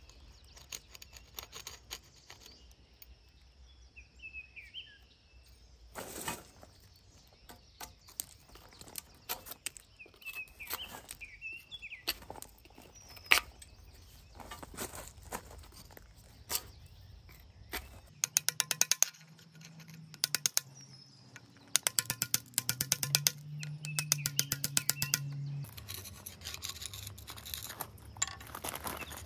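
Metal scraper scraping dried mortar off an old glazed ceramic sink in short strokes, with a few brief bird chirps; about two-thirds of the way through the strokes become quicker and louder.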